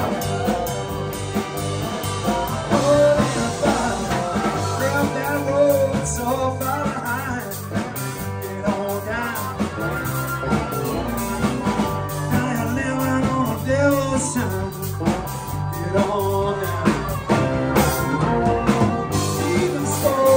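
Live blues-rock band playing: drum kit, electric guitars and a stage piano, with a man singing lead.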